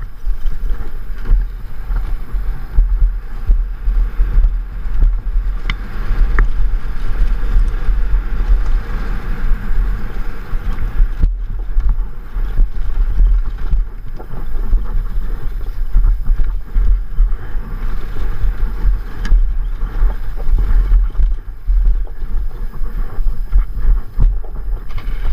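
Enduro motorcycle running off-road, heard through a rider-worn action camera, with heavy wind buffeting on the microphone giving a loud, uneven rumble.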